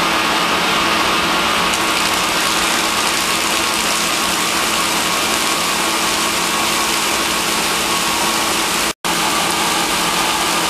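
84-inch Blanchard rotary surface grinder grinding the face of a metal riser block, its abrasive wheel throwing sparks against the turning table: a steady, dense grinding hiss with a constant hum under it. The sound cuts out for an instant about nine seconds in.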